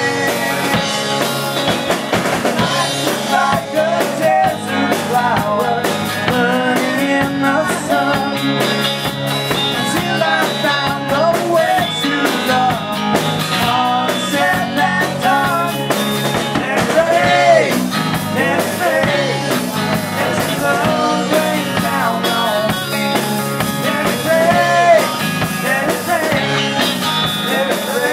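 Live rock band playing: a man sings lead over strummed electric and acoustic guitars with drums keeping a steady beat.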